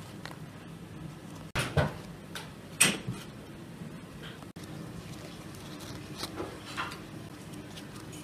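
Kitchen handling sounds: a few knocks and clatters, the loudest two about two and three seconds in and a few lighter ones near the end, over a low steady hum.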